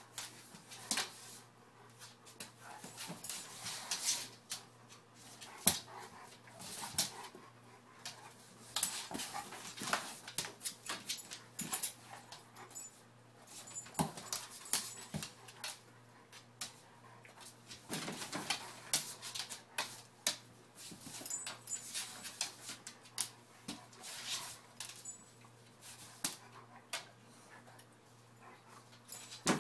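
A Saint Bernard and a Great Pyrenees play-wrestling on a wooden floor: irregular scuffling and sharp clicks of paws and claws, mixed with the dogs' own vocal noises.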